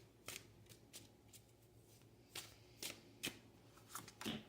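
Tarot cards being shuffled and drawn by hand: faint, irregular snaps and swishes of card stock, about eight or nine of them.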